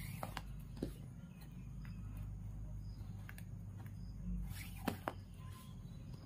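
Macrame cord being handled and knotted by hand: faint rustling with a few light clicks, two of them close together about five seconds in, over a steady low hum.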